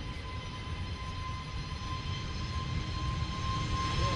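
Jet airliner's engines running on the runway: a low rumble with a steady high whine, growing slowly louder as the aircraft comes nearer.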